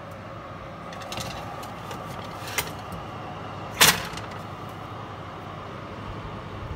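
Metal oven rack with a baking tray being pushed into an oven: a few light clicks, then one sharp metallic clatter about four seconds in, over a steady hum.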